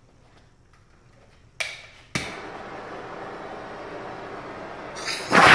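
Handheld propane torch lit with two sharp clicks, then burning with a steady hiss. Near the end comes a much louder rushing burst as pressurised gas from the tank, hydrogen made from lye and aluminium, is let out into the flame.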